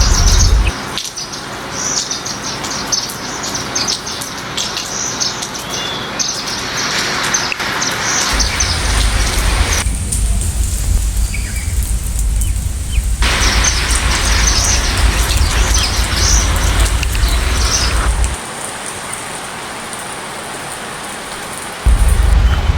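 Steady rain falling, with small birds chirping over it again and again; the chirping stops for a few seconds near the middle. A deep low rumble comes and goes beneath the rain.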